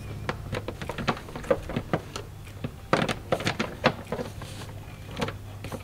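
Scattered clicks and plastic knocks as a car's dashboard side trim panel is pried and pulled loose by hand, with a quick run of sharper snaps about three seconds in, over a steady low hum.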